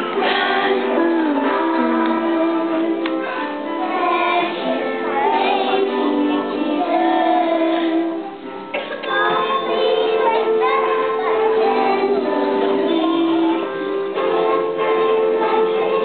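Music with a child singing a melody over accompaniment, with a short break about eight seconds in.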